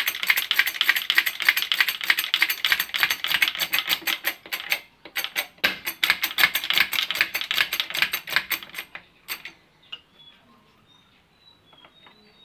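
Rapid, dense clicking in two long runs, broken briefly about five seconds in, then thinning to a few scattered clicks near the end.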